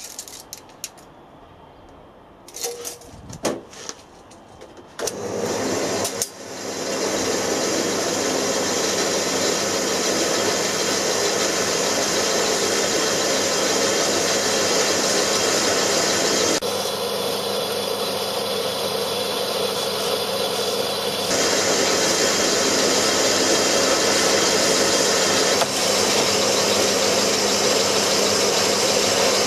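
A few light clicks and knocks of handling, then about five seconds in a horizontal metal-cutting band saw starts and runs steadily, its blade cutting through square steel tube. Its sound shifts for a few seconds a little past the middle, then carries on as before.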